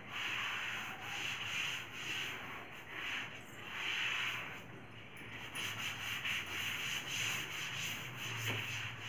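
Irregular rubbing or scraping strokes on a surface, one after another for several seconds.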